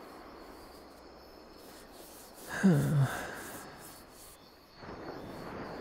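A man's short wordless vocal sound, falling in pitch, about two and a half seconds in, over faint steady background noise.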